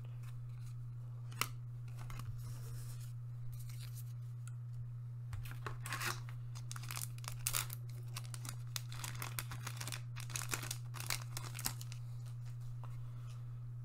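A foil trading-card booster pack torn open and its cards handled: scattered short crinkling rips and card scrapes, busiest a few seconds in and again near the end, over a steady low hum.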